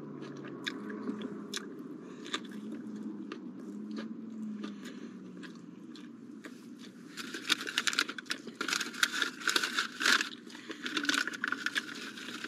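Close-up sounds of a person eating a KFC honey barbecue chicken wrap. Chewing is quiet at first; after a bite about six seconds in, it turns into louder, crackly chewing with crunches.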